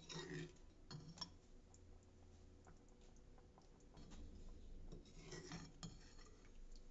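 Faint clinks and scrapes of a metal ladle against a metal kadai as fish curry is ladled out, a few soft knocks near the start, around a second in and again past the five-second mark.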